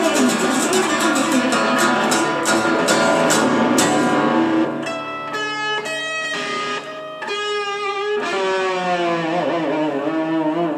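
Guitar playing an instrumental passage of the song: quick picked notes for the first few seconds, then longer held notes, some bending in pitch.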